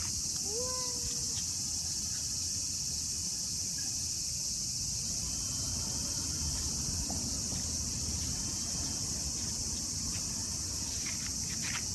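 Steady, high-pitched chorus of summer insects.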